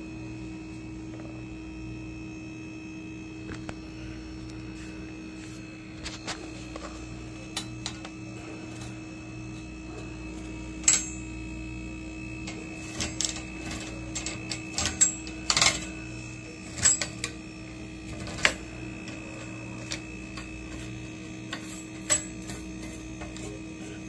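Steady electrical hum with a faint high whine, and irregular light clicks and taps, most of them in the second half.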